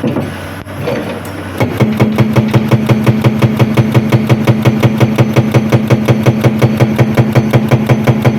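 Komatsu PC200 excavator's diesel engine running. After an uneven first couple of seconds it settles into a steady, rhythmic pulsing beat.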